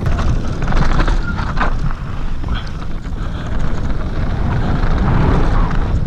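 Wind buffeting the microphone of a camera on a descending mountain bike, with the tyres crunching over loose scree and short clicks and rattles from the bike throughout.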